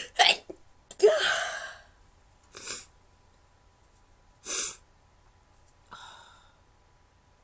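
A woman sneezing: a quick breath in, then a loud sneeze about a second in with a voiced 'choo' that falls in pitch, followed by two short sniffs and a soft breath out near the end.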